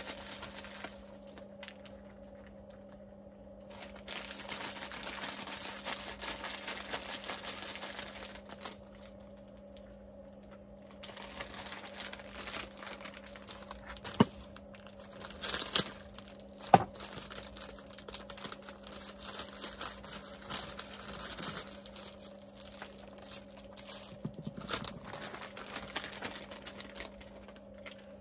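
Plastic salad-kit bag crinkling and rustling in long bursts as it is handled and opened, with two sharp knocks about halfway through. A steady low hum runs underneath.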